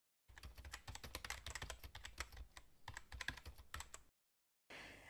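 Computer keyboard typing: a faint, quick, irregular run of key clicks that stops about four seconds in.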